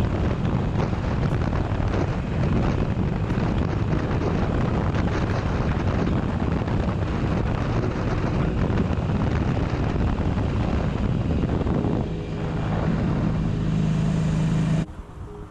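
Wind rushing over the microphone and the air-cooled V-twin engine of a 2012 Harley-Davidson Sportster 883 Iron, running at highway speed. About twelve seconds in the sound shifts to a steadier engine hum with a low even tone, which cuts off abruptly near the end.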